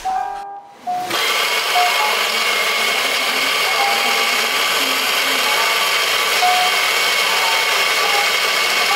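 Electric espresso grinder motor starting about a second in and running steadily with a whine, grinding a dose of coffee into a portafilter.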